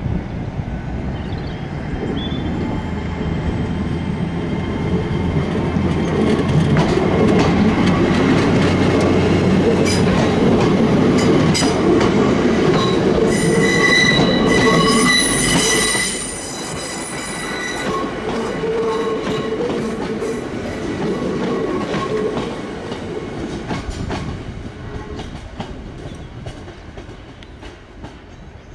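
TransPennine Express Hitachi multiple unit running close past along the platform, with rumbling wheel and rail noise. A high, multi-toned wheel squeal sounds for a few seconds around the middle, and then the running noise falls away and fades.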